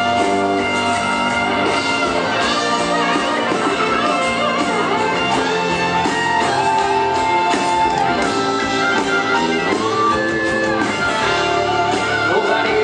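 Instrumental break in a Brazilian gospel worship song: the band plays on without singing, with guitar prominent and a melody line over held chords.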